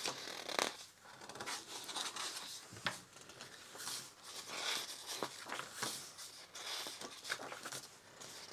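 Pages of a mediabook's bound paper booklet being turned by hand, one after another: a soft paper swish and rustle with each page, with a few sharp flicks.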